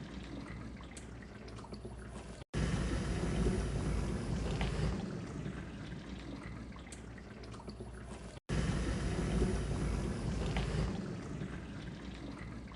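Dishwasher running: water splashing and sloshing over a low hum. It comes in segments of about six seconds, each starting louder and fading, with brief complete dropouts about 2.5 and 8.5 seconds in.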